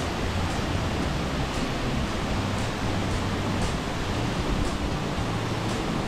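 Steady, even rush of a large waterfall crashing onto rocks, with faint light ticks about once a second.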